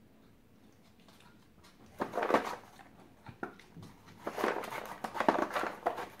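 A dog rummaging through a cardboard tray of rubber treat toys and balls, nosing the toys about for food: two spells of rustling and clattering, about two seconds in and again from about four seconds in, with a single knock between them.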